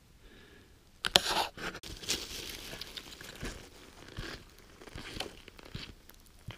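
Crunching and rustling close to the microphone: boots on packed snow and a winter coat rustling as a person walks away. It starts suddenly with a sharp knock about a second in.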